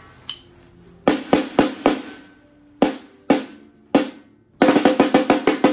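3D-printed snare drum tuned to very high tension, struck with a stick: a handful of single strokes with a high, ringing pitch, then a fast run of strokes in the last second.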